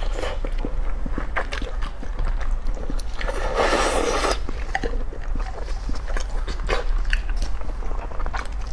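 Close-miked chewing of a soft vegetable sausage: wet mouth clicks and squelches, with a loud sucking slurp about three and a half seconds in that lasts about a second.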